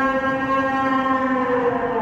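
Animatronic dinosaur's loudspeaker playing a long, pitched bellow that holds steady and drops slightly in pitch near the end.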